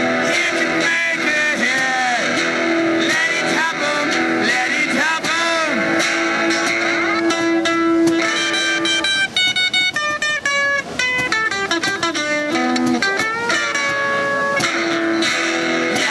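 Guitar music played continuously, with many notes bending in pitch and a run of short, clipped notes past the middle.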